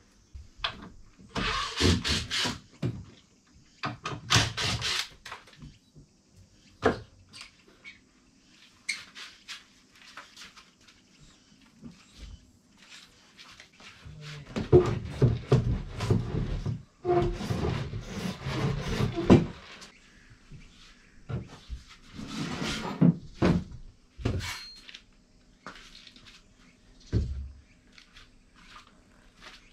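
Wooden bed frame being taken apart by hand: scattered knocks, clatter and scraping of wooden panels, in several bursts with quiet pauses between.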